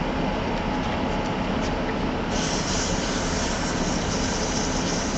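Wood lathe running steadily; about two seconds in, sandpaper is pressed against the spinning cherry goblet and a hiss of sanding joins the hum.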